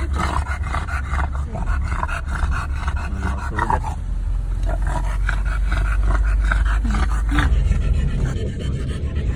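American bully dog panting rhythmically, over the car's steady low rumble.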